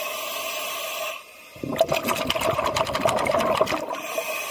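Scuba diver breathing through a full-face-mask regulator underwater: a hissing inhale, a short pause, then a crackling rush of exhaled bubbles for about two seconds, then another hissing inhale near the end.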